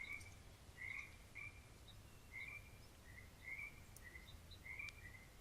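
Faint nature ambience: short high chirps from small animals, about eight at irregular intervals, over a low steady rumble.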